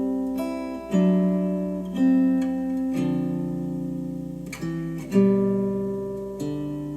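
Music played back through Monitor Audio Bronze 100 bookshelf speakers: acoustic guitar chords struck and left to ring, a new chord every second or so.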